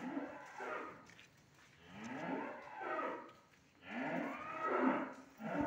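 Brahman-cross (BX) cattle mooing: three long, drawn-out moos that rise and fall in pitch, one after another.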